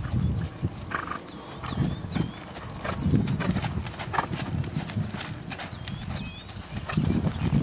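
Horse's hooves thudding on grass and dirt in a steady rhythm as the horse moves past close by, with a few sharper clicks among the dull beats.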